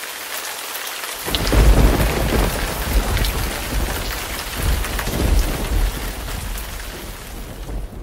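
Heavy rain falling steadily, with a clap of thunder breaking about a second in and rumbling on in several deep swells.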